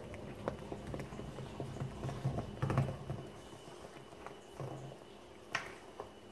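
Plastic spatula stirring thick banana bread batter in a stainless steel bowl: soft wet squelching with irregular clicks and taps of the spatula against the metal, and one sharper tap near the end.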